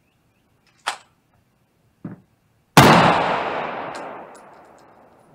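A single 9mm carbine shot, loud and sharp, just under three seconds in, its echo dying away over about two and a half seconds. Before it come a sharp click about a second in and a fainter knock, the sound of the gun being handled.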